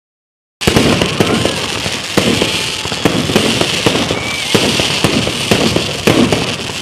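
Fireworks going off: a loud, dense run of bangs over steady crackling, starting abruptly about half a second in.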